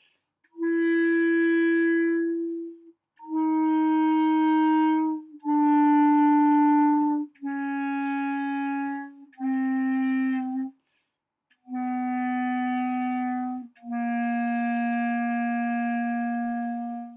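Soprano clarinet playing the lower part of a descending chromatic scale: seven separate held notes, each about two seconds with a short breath between, stepping down by half steps. The scale ends on a longer low C.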